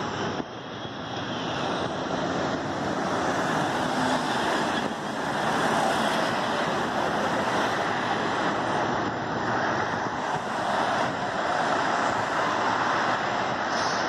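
Road traffic driving past close by: a steady rush of car tyres and engines.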